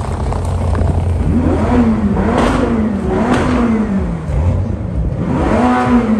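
V8 sports car engines: a low idle rumble, then a series of short revving blips that rise and fall in pitch, the last one near the end the loudest.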